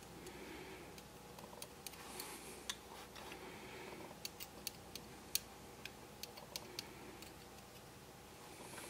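Faint, irregular small clicks and taps of a precision screwdriver tip touching the gears and frame of a model locomotive's ringfield motor bogie as oil is dabbed onto it.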